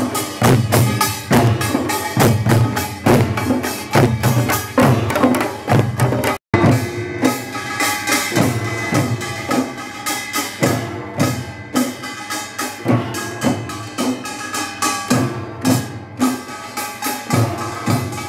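Korean nongak farmers' band drumming in a fast, steady rhythm of about four beats a second, with barrel drums and small hand drums beaten together. The sound cuts out for an instant about six and a half seconds in, then carries on.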